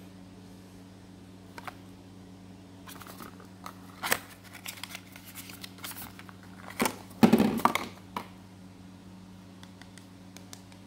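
Medicine packaging handled and opened by hand: scattered crinkling, tearing and clicking, loudest about seven seconds in. A steady low hum runs underneath.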